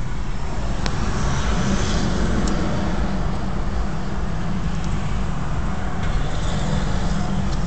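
Steady road noise inside a moving car: a low rumble of tyres and engine, with a brief click about a second in.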